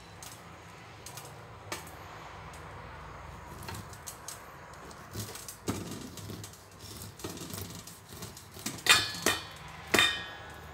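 Knife cutting kernels off a waxy corn cob into a stainless steel bowl: soft scraping with scattered small ticks, then near the end three sharp metallic clinks of the blade against the bowl, each ringing briefly.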